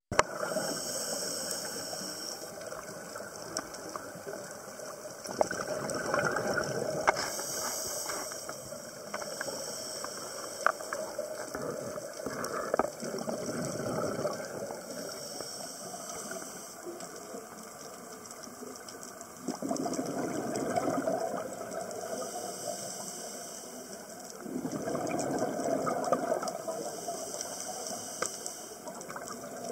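Scuba regulator breathing, recorded underwater through a camera housing: a hiss with each inhale every several seconds, alternating with the rush of exhaled bubbles, and scattered sharp clicks.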